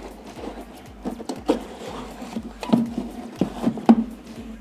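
A cardboard box and its packaging are handled while an electric dry iron is lifted out of it. Irregular knocks, taps and scraping sound, with the loudest knock near the end.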